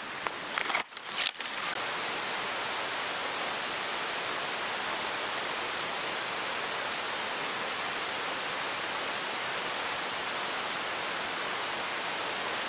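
Steady rushing of river water, an even hiss that does not change. In the first second or so, a few sharp cracks.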